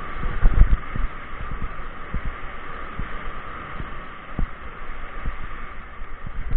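Mountain bike rolling fast over a gravel track: irregular low thuds and knocks as the bike and camera jolt over bumps and stones, over a steady hiss of tyres and wind. The heaviest knocks come about half a second in.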